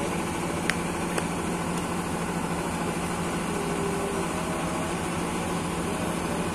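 A steady mechanical drone with a low hum running through it, and two faint clicks about a second in.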